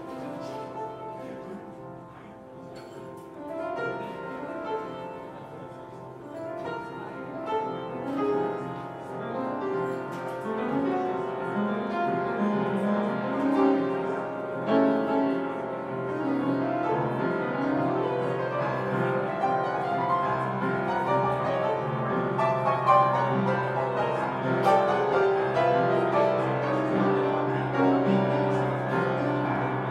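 Live jazz quartet: piano leading over double bass and drums, the playing growing louder over the first ten seconds or so and then staying full.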